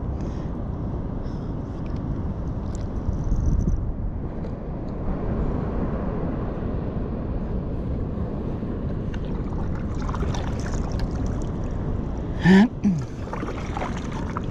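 Steady low rush of wind and water lapping around a fishing kayak, with no motor. Near the end, a brief loud cry from a person.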